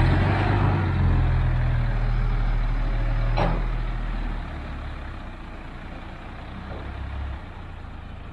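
Crane truck's diesel engine running, loud in the first half and then fading after about four and a half seconds as the truck pulls away. A brief hiss comes right at the start, and a short sharp sound about three and a half seconds in.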